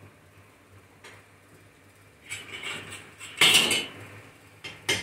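Steel angle pieces and a bench vise clinking: a few light metal clicks about two seconds in, then a louder half-second metallic clatter, and another clink near the end.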